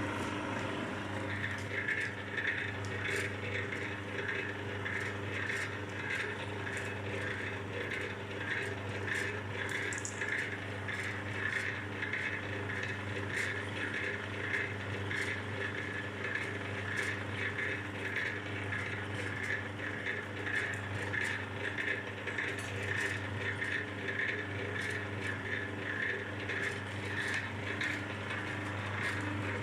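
Electric cable stripping machine running: its motor and reduction gearbox hum steadily, with a rhythmic scraping two or three times a second as the rollers pull a cable through and the knives slit its insulation.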